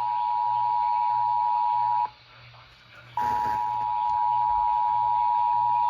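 Emergency alert tone from a radio receiver relaying a severe thunderstorm warning: one steady, unbroken high tone that cuts off about two seconds in and starts again a second later.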